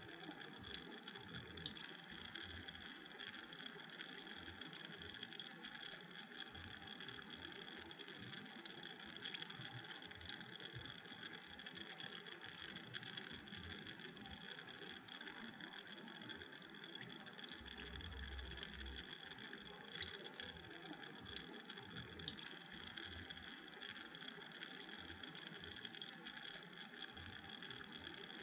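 Carbonated drink fizzing: a steady hiss of countless tiny bubbles popping, with a dense crackle of faint ticks.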